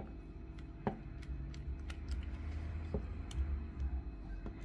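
Light, irregular clicks and ticks of a small Torx screwdriver working at tiny screws in a plastic gimbal housing, over a low handling rumble.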